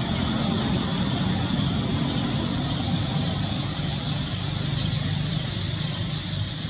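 Steady low engine rumble, unchanging, with a constant high-pitched whine above it.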